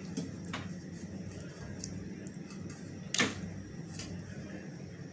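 Pan of beef masala cooking on a gas stove: a steady low hum with faint cooking noise, and a few brief knocks or scrapes, the loudest about three seconds in.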